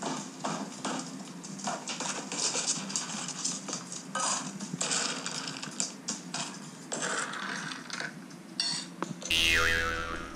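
Dry dog kibble rattling into stainless steel bowls, an uneven patter of small hard clicks, heard through a phone's speaker. About nine seconds in, a loud tone sweeps down in pitch for about a second over a low rumble.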